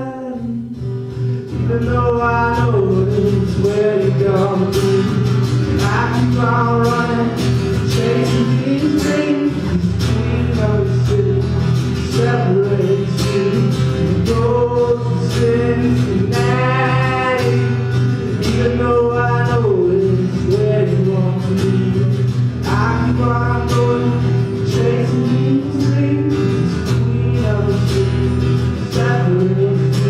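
A young man singing with steady strummed acoustic guitar accompaniment in a live solo song.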